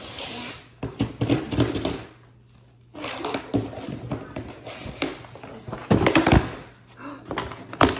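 Gift packaging being handled, rustling with several knocks and thumps, loudest about a second in and again around six seconds in.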